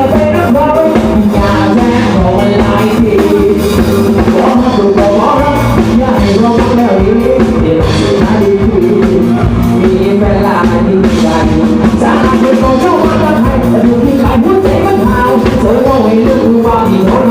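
Mor lam music played loud by a band with a drum kit, with singing over a steady beat.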